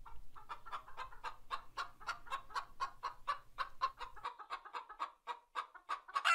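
Domestic hens clucking: a quick, even run of short soft clucks, with one louder call near the end.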